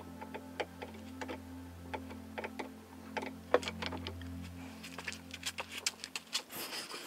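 Light, irregular clicks and taps of a small metal tool and pin against the table saw's plastic housing at the height-adjustment wheel, a sharper click about halfway through. A steady low hum runs underneath and stops shortly before the end.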